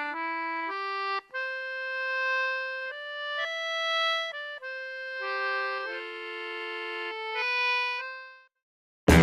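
Background music: a reedy, accordion-like melody of held notes and chords that fades out near the end. It is followed by a sudden cut to loud live background noise.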